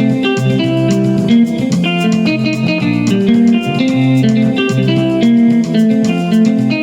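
Yamaha PSR keyboard's clean guitar voice playing a lively plucked praise pattern over a bass line, with a light steady beat ticking underneath.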